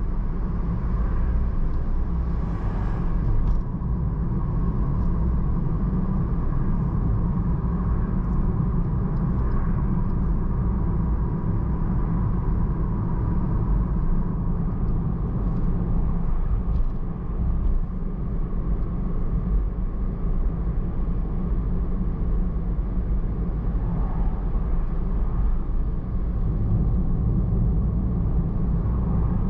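Steady low road and engine noise of a car being driven.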